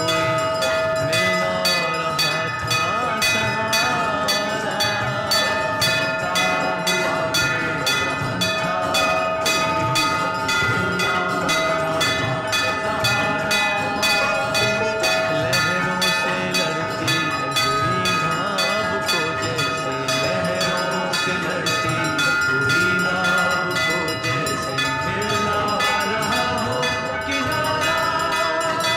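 Temple bells and gongs struck over and over in a fast, steady rhythm, their ringing tones held over a murmur of devotees' voices.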